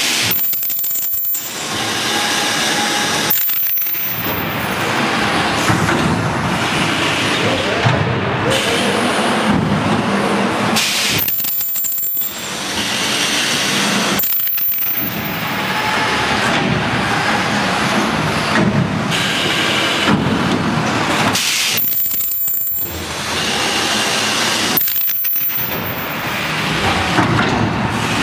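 Geocell welding machine running in repeating cycles, with steady metallic clattering and clinking. The clatter breaks off briefly every few seconds, and a short very high-pitched whine follows several of the breaks.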